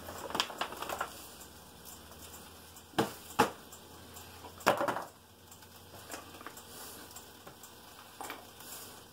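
Quiet kitchen handling as fries are tipped from a plastic bowl onto a plate: light rustling of paper towel, then three sharp knocks of the bowl and plate, about three, three and a half and nearly five seconds in.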